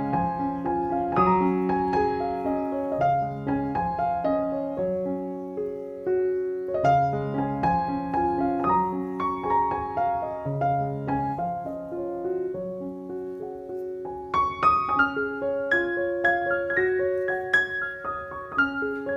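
Background piano music: a gentle melody of single notes and chords, each note struck and then fading.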